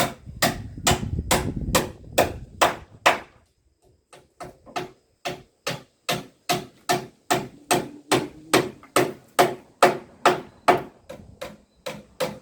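Hammer striking wood in a steady run of blows, about three a second, with a brief pause about three seconds in.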